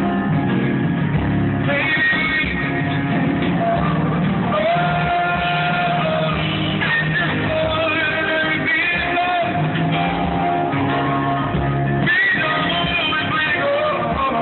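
Live band music with a voice singing over it, the sound thin and cut off at the top as from a phone recording.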